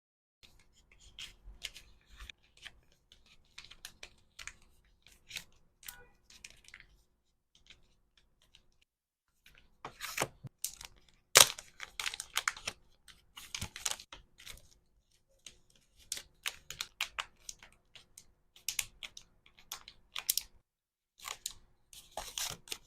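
Hand packing of small accessories: a run of short rustles, taps and clicks of plastic packaging, with a brief lull about eight seconds in and one sharp click about eleven and a half seconds in.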